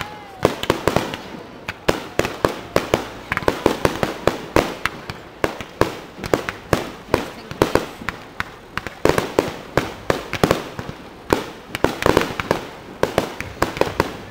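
Aerial fireworks shells going off in a rapid barrage, several sharp bangs a second with no let-up.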